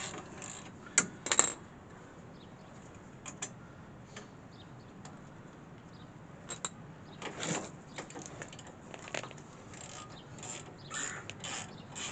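Metal hand tools and brake hardware clinking and clicking as they are handled and set down. A few sharp clinks a little over a second in are the loudest, with scattered lighter ones after.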